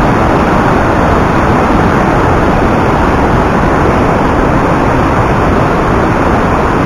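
The Rhine Falls, a huge volume of water crashing over the rocks close by, giving a loud, steady roar.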